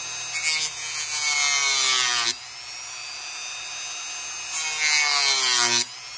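Dremel rotary tool with a cutting disc whining steadily while it grinds flash off a plastic model part. It bites into the plastic twice, about half a second in and again near five seconds, each time adding a harsh rasp as the motor's pitch sags under the load, then stops suddenly as the disc comes free.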